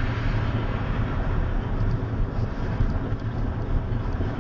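Combine harvester running with a steady low drone, with some wind noise.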